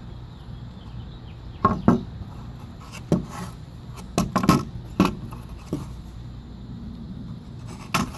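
Irregular knocks and clatters of hard objects being handled and set down, about eight in all, over a steady low hum.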